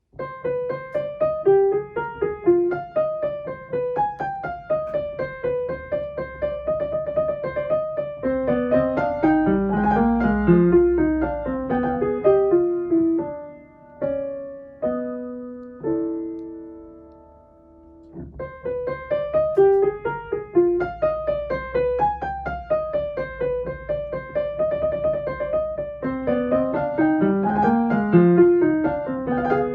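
Piano playing a fast, even stream of broken-chord notes. About halfway through it slows to a few held chords, then the opening passage starts again.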